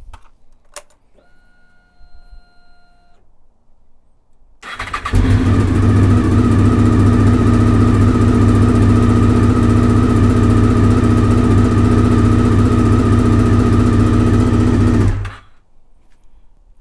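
A fifth-generation Honda VFR800's 90-degree V4 engine, fitted with an aftermarket Delkevic exhaust, being started. A click and a brief whine as the ignition is switched on, then the engine fires and idles steadily for about ten seconds before being shut off suddenly.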